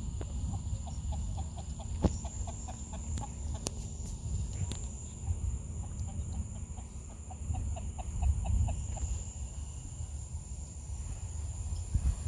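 Outdoor night ambience: a steady high insect drone, repeated quick runs of short low calls from an animal, and a low fluctuating rumble underneath.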